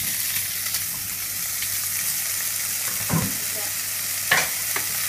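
Pieces of cooked chicken sizzling in hot olive oil in a frying pan, a steady hiss as they heat through. A couple of light knocks about three and four and a half seconds in.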